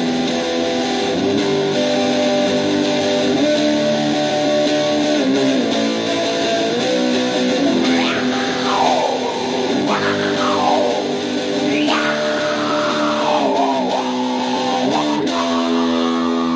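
Instrumental break of a rock song, led by guitar playing sustained chords. About halfway through, high notes swoop up and down in pitch several times.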